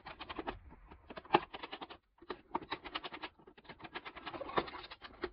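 Light, irregular clicking and rattling as a screwdriver and wires are worked at the terminal strip of an old plastic Rain Bird irrigation controller, with a short pause about two seconds in.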